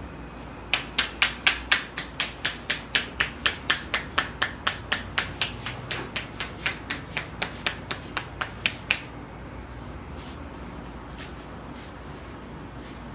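Rapid percussive hand strikes of a head massage: the hands tap or clap against the head in an even rhythm, about three or four sharp claps a second for some eight seconds, then stop, with a couple of faint taps after.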